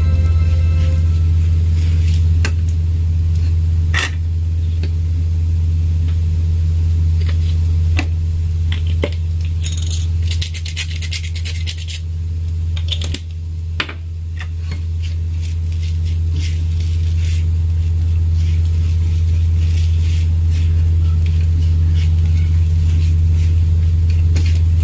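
A spatula stirs and scrapes fried rice in a nonstick frying pan, with scattered taps and clicks against the pan. A seasoning shaker rattles quickly for a second or two about halfway through. A steady low hum runs under it all.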